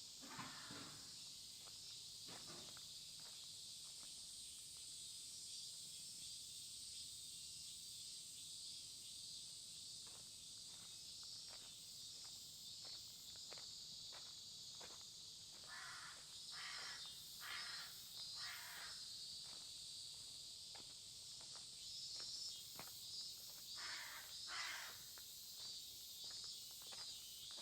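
Crows cawing: a run of about four caws past the middle and two or three more near the end. Under them, a steady high chirring of insects and regular footsteps.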